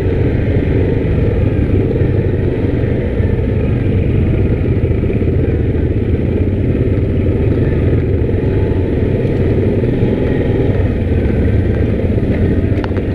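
Yamaha Grizzly 700 ATV's single-cylinder four-stroke engine running steadily under way on a trail, with a few sharp knocks near the end.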